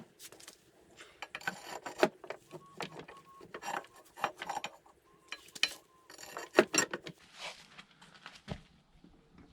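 Hand tools and metal parts being handled during scooter wheel-bearing repair work: a run of irregular clicks, knocks and rattles, a few with a brief metallic ring.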